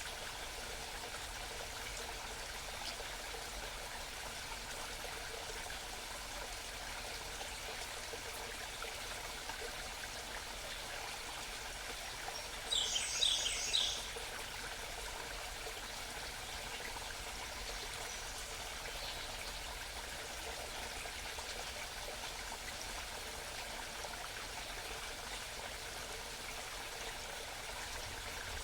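Small mountain stream babbling steadily, with a songbird singing one short, quick trill of repeated high notes about halfway through.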